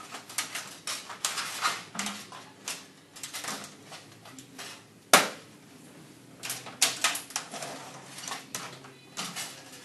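Irregular metal clicks and rattles as a fluorescent troffer's parabolic louver is taken off and handled, with one sharp knock about five seconds in.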